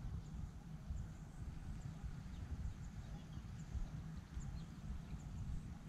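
Wind buffeting the microphone in an uneven low rumble, with faint short high chirps scattered through it.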